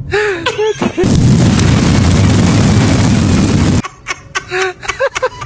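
A loud, harsh burst of noise lasting nearly three seconds, starting about a second in and cutting off sharply. Short vocal sounds with sliding pitch come just before and after it.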